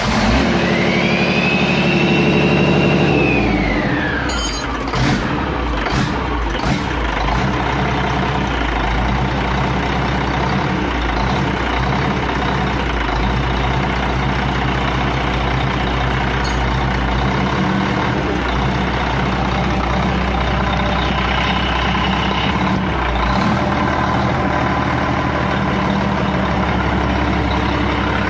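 Freshly overhauled Doosan DX12 six-cylinder diesel engine starting: a high starter whine rises and then falls away about four seconds in as the engine catches. It then runs steadily, with a few sharp knocks shortly after it fires.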